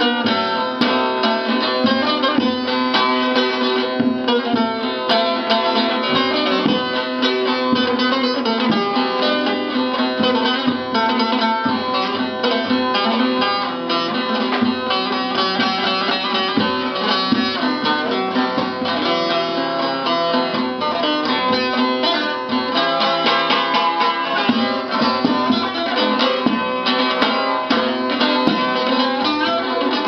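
Bağlama (saz), a long-necked Turkish lute, played solo with a plectrum: a fast, continuously picked melody over a steady low drone.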